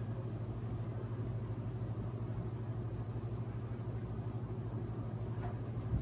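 A steady low hum with a rumble beneath it, unchanging throughout.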